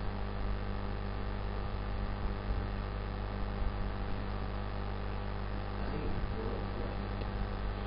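Steady electrical mains hum with hiss: a low, unchanging buzz from the recording setup picking up electrical interference.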